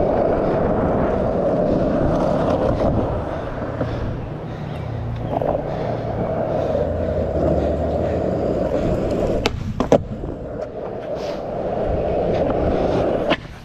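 Skateboard wheels rolling on rough asphalt: a steady grainy rumble, broken by one sharp clack about ten seconds in before the rolling resumes.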